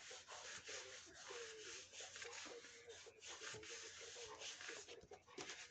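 Faint rubbing and rustling of paper as hands press and smooth a sheet flat onto a card base.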